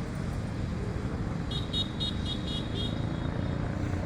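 Steady low background rumble with a quick run of about six short, high-pitched chirps about a second and a half in.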